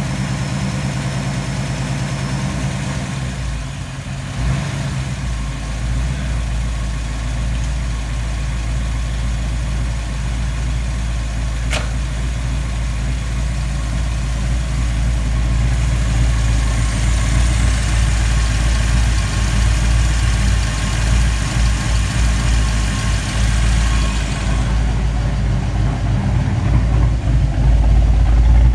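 Freshly rebuilt 1989 Ford Mustang 5.0 V8, fitted with a Comp Cams XE270HR-12 camshaft and still needing work on its tune, idling steadily. There is a single sharp click about 12 seconds in, and the engine grows louder toward the end.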